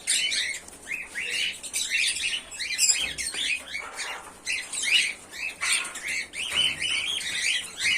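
Pearl cockatiels chirping, a steady stream of short, quick calls.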